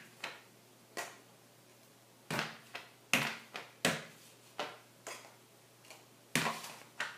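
Butter knife knocking and scraping against a jar of Reese's peanut butter spread while scooping, and scraping across a tortilla on a plate. About a dozen short clicks and knocks come at irregular intervals, loudest a little past three seconds in and again near the end.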